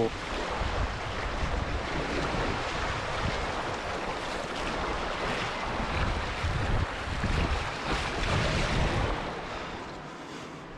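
Ocean surf washing, with wind gusting over the microphone in low rumbles; it eases off near the end.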